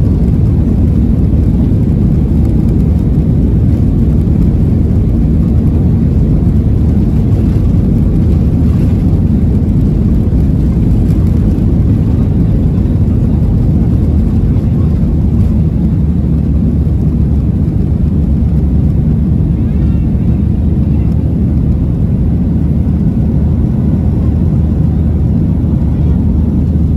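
Cabin noise in a Boeing 737-800 during the takeoff roll and liftoff: its CFM56-7B turbofans at takeoff thrust with runway rumble, a loud, steady, deep noise.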